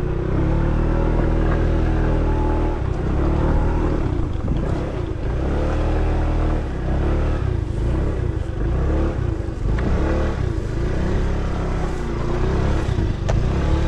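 A 50cc petrol scooter engine running and revving up and down as it rides over rough offroad ground.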